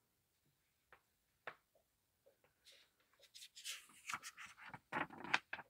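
Paper rustling as a zine's pages are handled and turned. It starts with a few light taps, then turns into a busier run of rustles and crackles in the last few seconds.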